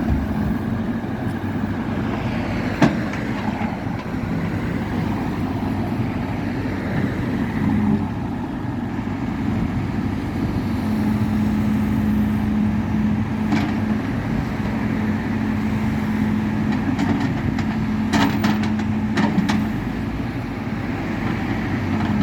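Motor vehicle running on the road: a steady engine and road drone with a low held hum. There are a few sharp clicks about three seconds in and midway, and a quick cluster of them near the end.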